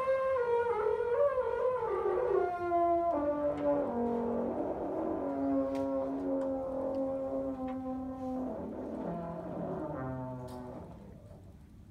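Tenor trombone playing a wavering, sliding glide that falls in pitch over the first few seconds, then holding a long low note, stepping down lower still and fading out near the end.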